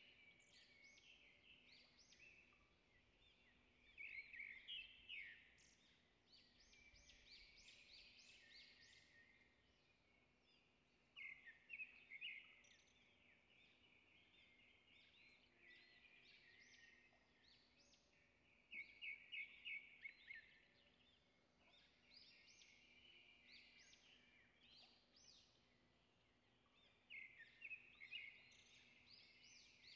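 Faint bird chirping: bouts of quick, high chirps that come back every several seconds over near silence.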